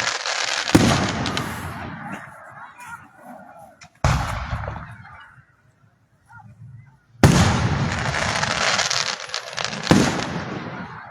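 Aerial fireworks bursting: four sharp bangs about three seconds apart, each followed by a long spray of crackling that fades away.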